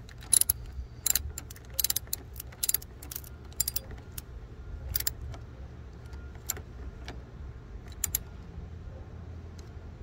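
Ratcheting wrench clicking as it tightens the nut on a car battery's terminal clamp: quick runs of clicks for the first three seconds or so, then a few single clicks spaced out.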